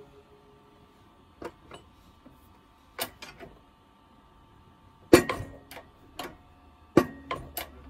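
Sharp metallic clicks and pings, about ten of them and loudest about five seconds in, each of the louder ones followed by a brief ring. They come from a Makita GA5034 angle grinder's spindle and press-fitted bevel gear being forced apart in a shop press, the tight fit giving way under load.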